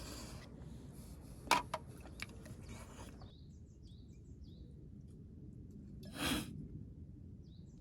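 Small birds chirping in short falling notes, with a few sharp clicks and knocks of things being handled about a second and a half in, and a brief rushing noise about six seconds in.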